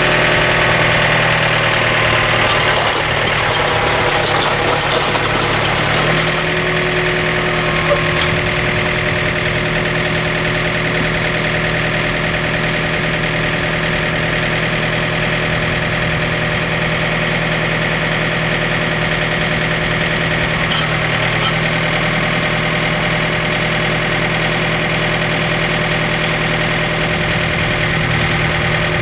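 John Deere 110 TLB's diesel engine running steadily, its note stepping up slightly about six seconds in.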